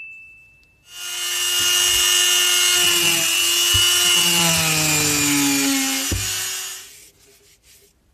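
Flexible-shaft rotary tool with a small disc bit working into a PVC pipe for about six seconds, a steady high whine and rasp whose pitch slides lower as the bit bears into the plastic, with two short knocks. A ringing tone fades out in the first second.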